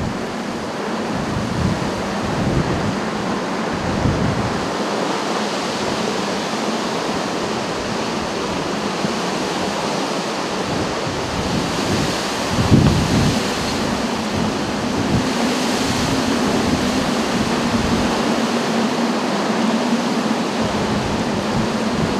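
Storm wind blowing across the microphone: a steady, loud rushing noise with gusts.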